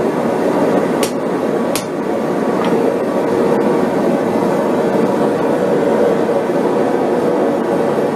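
Propane forge burner running with a steady roar. Two sharp metallic clinks come about a second and just under two seconds in.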